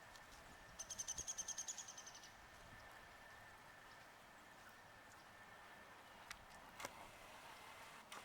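A small songbird's rapid high trill of about fifteen evenly spaced notes, lasting about a second and a half, over a faint steady high tone. A few sharp clicks come near the end.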